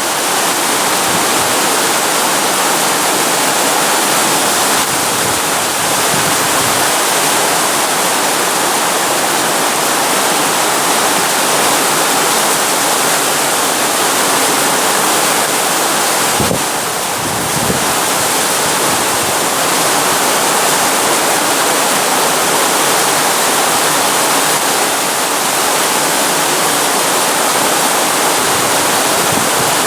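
Heavy downpour: a steady, loud hiss of rain, dipping briefly a little past halfway.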